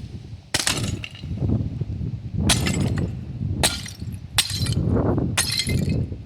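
Sledgehammer blows smashing a porcelain toilet: five hard cracking strikes, the first about half a second in and the rest coming faster from about two and a half seconds on, each with pieces clinking and shattering.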